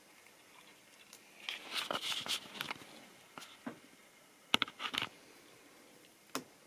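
Scattered light clicks and knocks of handling as the camera is set down on the model railway layout: a quick cluster about one and a half seconds in, a louder pair of knocks around four and a half to five seconds in, and one more click near the end. No train is running.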